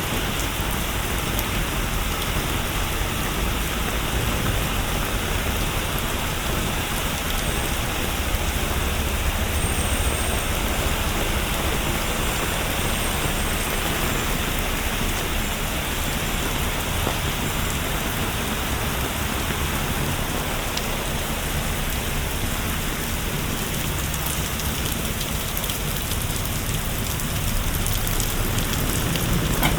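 Steady rain falling on hard surfaces: a continuous, even hiss with fine pattering drops and a low rumble underneath.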